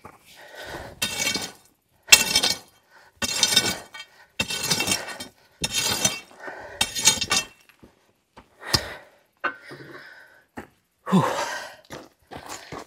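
Hand tool working metal on a digger's steel track: six rhythmic, harsh metal strokes about a second apart, then a few scattered knocks and clinks.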